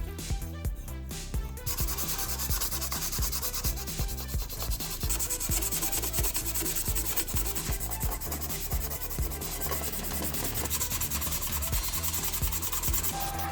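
Sanding a diecast model car part: a steady, rapid rubbing hiss that starts about two seconds in, with background music beneath it.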